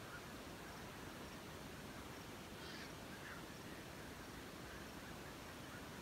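Faint, scattered calls from a colony of roosting waterbirds over a steady hiss, with the most prominent call about halfway through.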